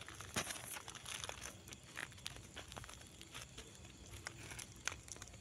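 Faint scattered scuffs and short clicks of a dog's paws pawing and shuffling on sandy dirt ground.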